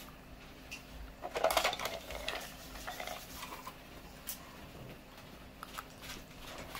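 Maggi soup-mix packet rustling and crinkling as it is handled and shaken over a pot, loudest about a second and a half in, followed by a few light clicks.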